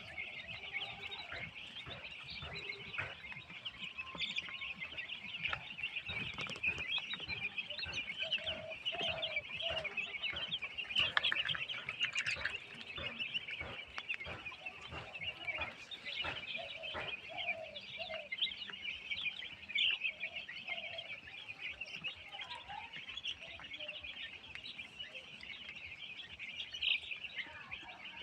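A large flock of broiler chickens peeping continuously in a dense high-pitched chorus, with scattered lower clucks and short clicks.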